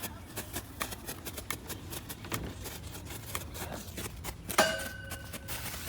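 Small firework crackling with scattered sharp pops and clicks, then one louder sharp bang about four and a half seconds in, followed by a brief thin steady tone.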